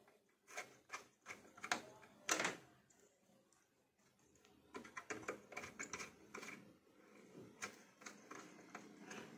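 Small screwdriver working the screw terminals of a Sony car amplifier while speaker wire is fastened: scattered sharp clicks and light metal scrapes, with a quiet gap of about a second and a half in the middle.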